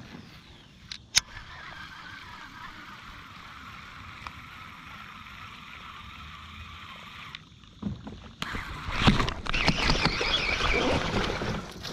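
Steady hiss of water around a fishing kayak with a couple of sharp clicks, then from about eight seconds in much louder splashing and clattering against the kayak, typical of a fish being pulled in at the hull.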